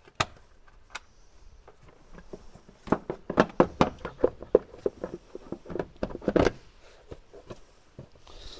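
Plastic air filter box of a Mk3 VW Golf being opened by hand: a couple of single clicks, then a quick run of clicks and plastic knocks as the lid is lifted off and the old filter is pulled out.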